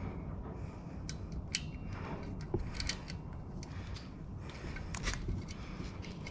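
Small, scattered metallic clicks and clinks as valve keepers are set into a compressed valve spring retainer on an LS engine with a long thin tool, over a steady low background noise.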